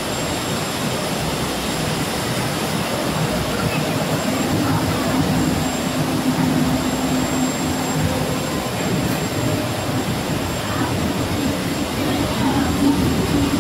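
Panko bread crumb production line machinery running: a steady, loud mechanical din with a low hum, from the conveyors and crumb-handling equipment as crumbs move along the line.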